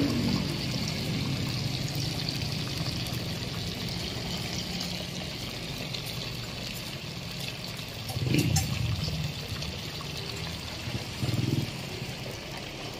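Duck pieces deep-frying in a pot of hot oil: a steady sizzle with bubbling. Two brief low thumps come about eight and eleven seconds in.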